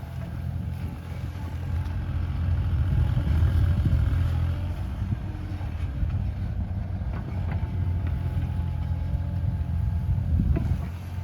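Bobcat E37 compact excavator's diesel engine running steadily under work, with a couple of short knocks in the second half.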